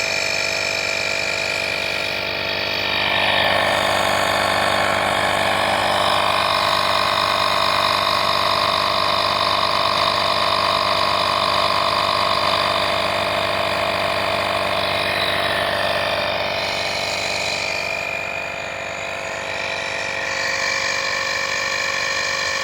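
AstroAI portable air compressor running steadily as it inflates a tire toward a set pressure of 32.5 PSI, with a slight dip in level about 18 seconds in.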